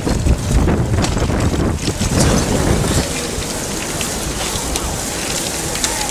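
Wind buffeting the microphone of a camera riding along in a bicycle lane, a rough rumbling rush that is heaviest in the first half, with scattered light clicks and rattles from the bikes. There is no motor-traffic noise.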